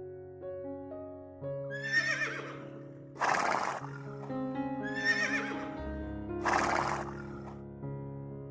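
An animal call heard twice over background music with a piano-like melody: each time a wavering high call followed by a harsh, breathy burst.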